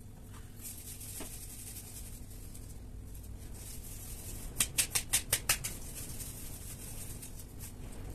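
A quick run of about six sharp taps about halfway through, over a steady low hum and a faint hiss.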